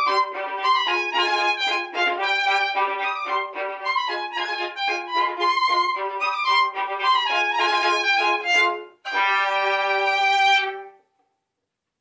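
Violin duet: two violins playing quick running notes, then a short break about nine seconds in and one held final chord that stops about two seconds later.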